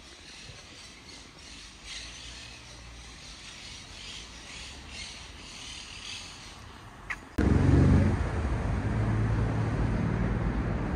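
Quiet street ambience with faint high chirping over a low hum. About seven seconds in it switches suddenly to loud road traffic, with a vehicle engine rumbling close by.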